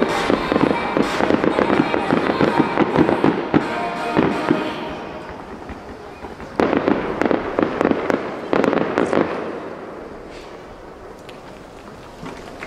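Aerial fireworks shells bursting and crackling: a dense crackle over the first few seconds that fades, then two fresh bursts with crackle at about six and a half and eight and a half seconds in, dying away toward the end.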